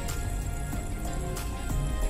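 Background music, with a few short clicks over it.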